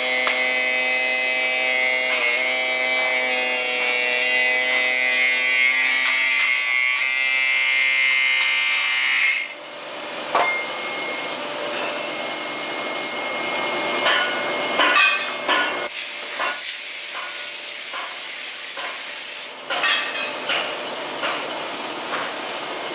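A foundry moulding machine runs with a steady hum and hiss, then cuts off suddenly about nine seconds in. The rest is a clatter of sharp knocks and scrapes as the pattern plate is lifted off the green sand mould and the moulding box is handled.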